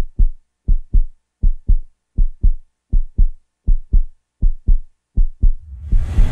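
Heartbeat sound effect: low double thumps, lub-dub, at a steady pace of about 80 beats a minute. Near the end a rushing noise swells up over the beat.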